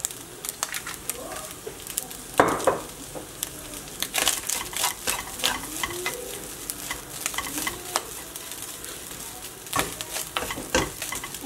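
Fried rice with egg and vegetables sizzling in a nonstick wok while a wooden spatula stirs and scrapes it, with frequent clicks of the spatula against the pan. There is a louder knock about two seconds in.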